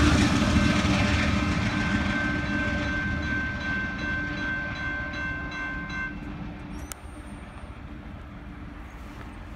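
Low rumble of a passing Amtrak passenger train fading as it moves away, with the grade-crossing warning bell ringing steadily until it cuts off about six seconds in. A single clunk follows as the crossing gate begins to lift.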